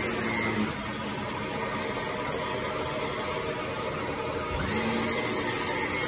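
Upright bagless vacuum cleaner running over carpet: a steady motor whine over the rush of suction. The whine's pitch drops just under a second in and glides back up a little past the middle.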